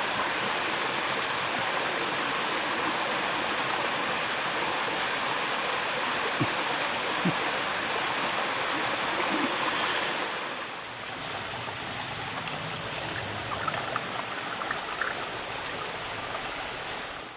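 Small mountain stream and waterfall rushing steadily; the rush gets quieter about ten seconds in.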